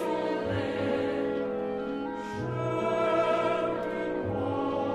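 Slow orchestral classical music with long held notes.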